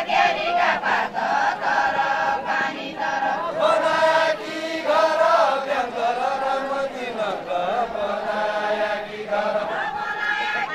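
Deuda folk song sung by a group of dancers: many voices chanting a melody together in unison, phrase after phrase.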